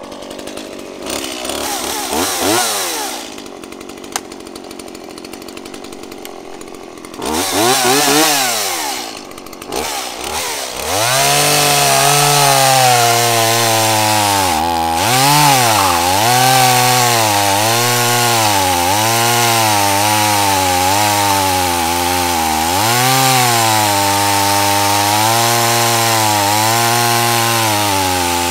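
Stihl MS 170 two-stroke chainsaw running: a short rev, then another rev up and down, and from about eleven seconds in held at full throttle and cutting, its pitch repeatedly dipping under load and recovering. The cut is a test of a freshly hand-filed chain in dry hardwood.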